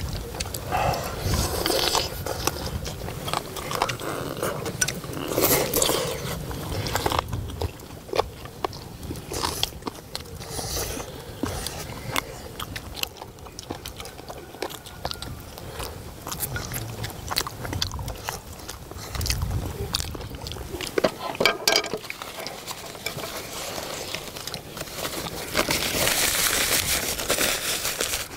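Close-miked eating: several people biting and chewing pieces of braised spicy chicken leg, with short sharp clicks of chopsticks against bowls. Near the end comes a longer, louder stretch of slurping from a bowl held to the mouth.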